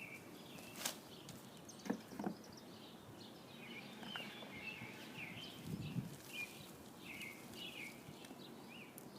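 Small birds chirping over and over in the background, with a few sharp clicks about one and two seconds in and a soft low rustle near the middle, from hands working through potting soil.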